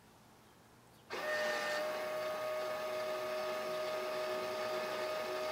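Small electric motor of a YarnDancer automated ball winder starting about a second in and running with a steady whine as it winds yarn off the swift.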